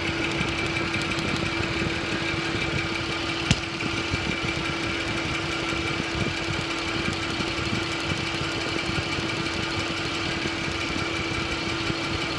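A 2005 Chevy Equinox's 3.4-litre V6 idles steadily, with one sharp snap about three and a half seconds in. The cylinder 6 ignition wire is leaking spark through a pinhole in its boot, arcing to the exhaust heat shield.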